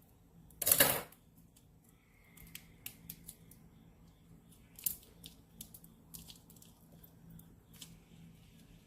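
Scissors cutting open a small plastic packet, one loud cut a little over half a second in, followed by scattered faint clicks and soft plastic rustling as it is handled.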